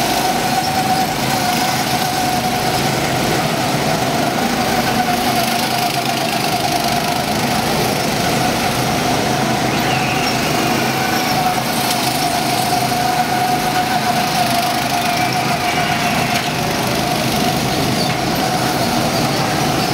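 Several go-kart engines running on a track, a steady drone with one constant tone held throughout.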